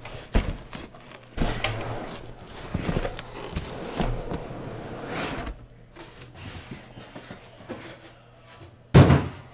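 Shrink-wrapped card boxes scraping and rustling against a cardboard case as they are handled and slid out, with a sharp thump near the end.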